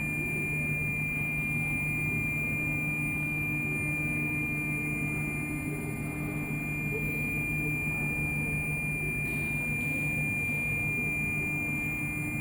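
HG 1325A wood CNC router's axis drive motors running with a steady whine of several held tones as the machine homes its X, Y and Z axes.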